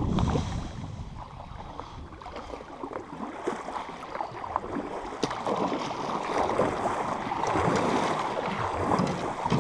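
Canoe paddles pulling through the water, with water splashing and swishing along the aluminium hull in uneven strokes. Wind rumbles on the microphone for the first moment.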